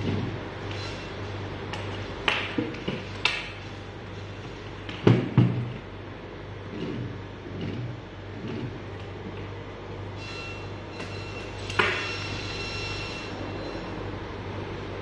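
A few sharp clicks and knocks from small metal parts, a round connector plug among them, being handled, with two louder low knocks about five seconds in, over a steady low hum.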